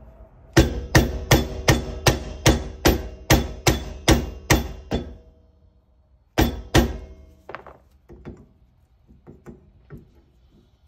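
Steady hammer strikes on the metal grease cap of a trailer axle hub, knocking it loose with a makeshift tool instead of a mallet. There are about twelve ringing blows, roughly two and a half a second, then two more hard hits after a pause and a few lighter taps.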